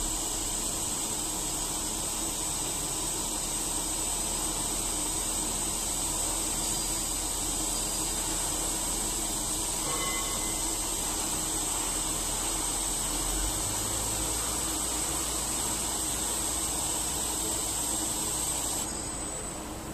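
Twin opposed face-milling heads of a GooDa TH-460NC CNC duplex milling machine cutting both sides of a metal block at once: a steady machining noise with a thin, high, steady whine. The whine drops out about a second before the end.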